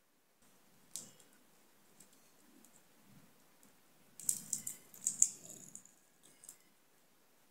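Faint clicks and scratchy scraping of a slim metal tool against the small parts of a disassembled smartwatch held in the fingers: one click about a second in, then a brief burst of scraping and clicking about four to five and a half seconds in.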